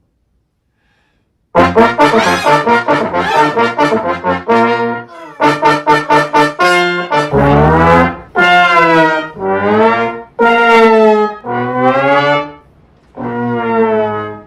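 Brass-like musical tones, like a trombone, starting about a second and a half in after silence. A run of short quick notes gives way to longer notes that bend in pitch, with a brief gap near the end.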